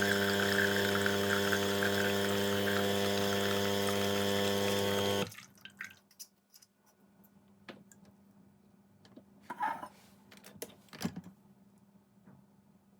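Home espresso machine's pump humming steadily as water runs through into the cup, cutting off abruptly about five seconds in. A few light clinks follow.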